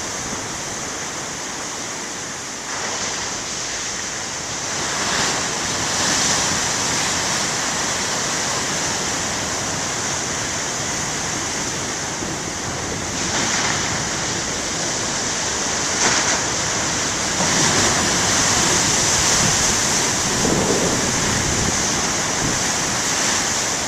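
Big ocean waves breaking and washing up the shore in a steady rush of surf. It swells louder several times as sets come in, loudest from about two-thirds of the way through.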